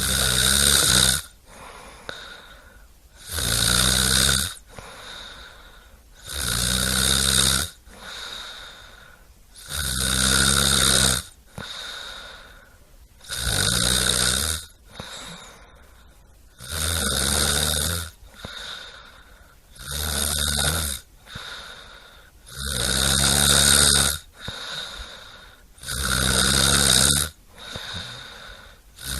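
Snoring in a slow, regular rhythm: about nine loud snores, one every three seconds or so, each lasting around a second, with quieter breaths between them.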